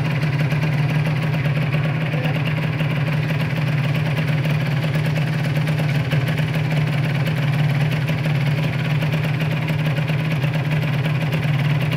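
Small motorcycle engine idling steadily, without revving.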